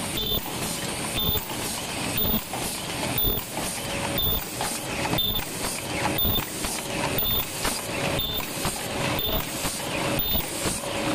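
Paper cup forming machine and double-wall cup sleeve machine running together: a steady mechanical clatter with a regular, quickly repeating production cycle.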